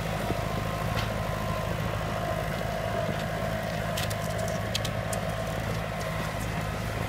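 Lamborghini R1.55 compact tractor's diesel engine running steadily at low revs, with a few sharp clicks about four to five seconds in.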